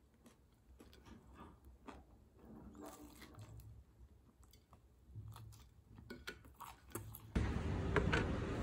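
Faint clicks and crunches of someone chewing food in a small room. About seven seconds in, it cuts to louder, steady outdoor street noise with traffic.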